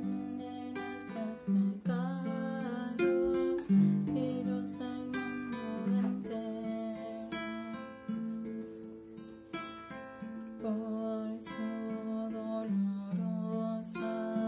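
Acoustic guitar playing a slow instrumental passage of picked notes and strummed chords, each chord left to ring out.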